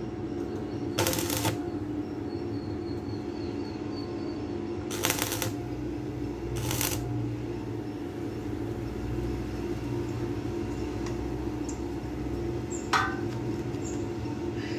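Short scrapes of a spirit level rubbing against a square steel box-bar post, three times in the first seven seconds. About thirteen seconds in comes a sharp metallic clink with a brief ring as the level comes off the post. A steady low hum runs underneath.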